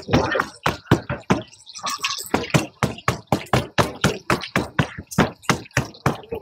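Rapid, regular knocking on a pancake stall's work surface as the dough is worked, about four strikes a second, with a brief break about one and a half seconds in.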